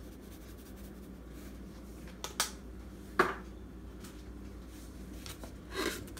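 A few short kitchen taps and rattles as black pepper is shaken over the sauce in the skillet. There are two quick ones a little after two seconds, a sharp louder knock about three seconds in, and a slightly longer rattle near the end, over a low steady hum.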